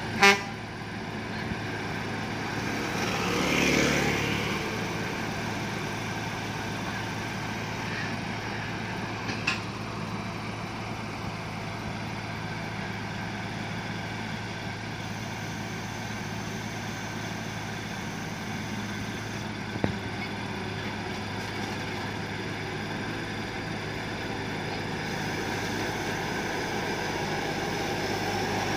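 Combine harvester's engine running steadily, swelling louder briefly about three to four seconds in, with a short horn toot right at the start.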